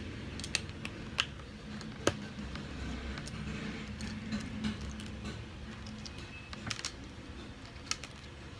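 Small plastic building bricks and minifigure parts clicking and clattering as they are handled and sorted on a wooden table: a scattering of separate sharp clicks, the loudest about two seconds in.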